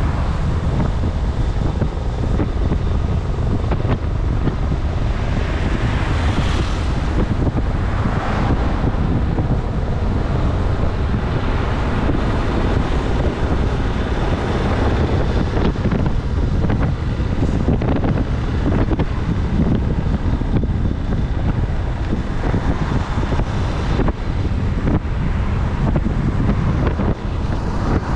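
Wind rushing over a GoPro's microphone on a moving motorcycle, with steady road noise from riding on wet tarmac in the rain. The rush swells briefly about six to nine seconds in.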